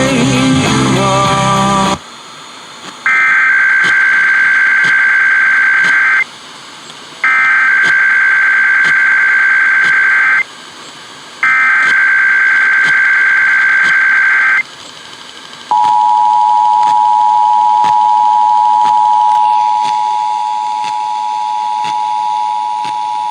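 Emergency Alert System test over the radio. A couple of seconds of program audio cut off, then come three bursts of the screeching SAME digital header, each about three seconds long with a second's gap between them. About 16 seconds in, the steady two-tone EAS attention signal begins and holds.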